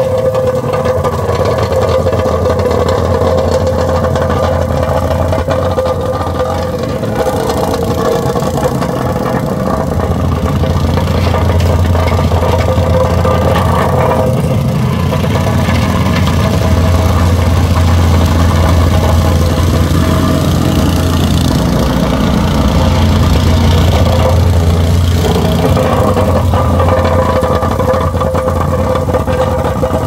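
Vibratory plate compactor running steadily, its small gas engine driving the plate as it vibrates over freshly laid asphalt to compact it.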